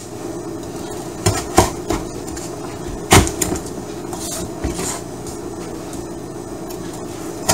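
Kitchen knife splitting peeled sugarcane into sticks on a wooden cutting board: a few sharp knocks of the blade through the cane onto the board, the loudest about three seconds in.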